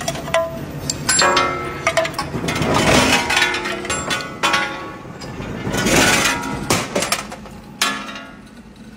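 Clanks and clinks of hot steel bolt blanks being handled and hot-forged: several sharp metal-on-metal strikes that ring briefly, and two longer, louder swells of noise from the forging machine about three and six seconds in.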